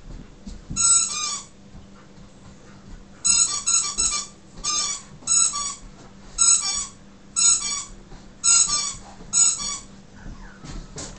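Squeaky dog toy being bitten by a husky, giving short wavering squeaks about once a second, some in quick pairs.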